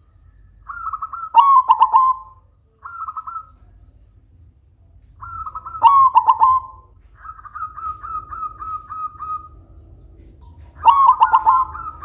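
Silver zebra dove (perkutut silver) cooing in rolling, trilled phrases. There are three loud phrases, a short one about three seconds in, and a run of quick staccato notes between about seven and nine seconds.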